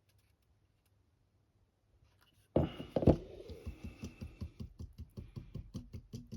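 Near silence, then suddenly a quick run of even rattling knocks, about five a second, with one louder hit near the start.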